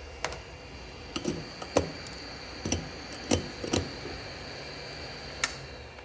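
Light metal clicks and taps, about eight spread irregularly, as tweezers lift a freshly desoldered chip off an engine-control circuit board, over a steady background hum.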